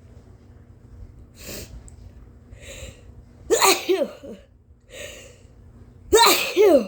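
Induced sneezing from a woman: short sharp intakes of breath building up, then two loud voiced sneezes, the first about three and a half seconds in and the second, a double one, near the end.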